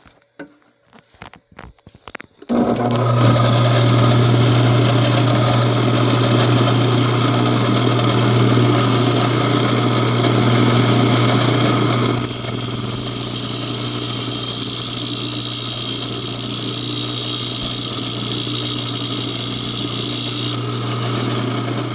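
Wet tile saw with a glass-cutting blade switched on about two and a half seconds in and running steadily with a low hum, cutting a pane of glass; the sound changes and drops a little about halfway through.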